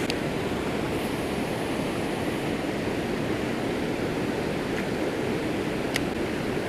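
Steady rush of river water churning through a concrete dam spillway, with a faint click about six seconds in.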